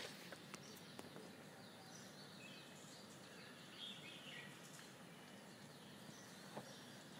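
Near silence: faint background noise, with a few faint high chirps around the middle.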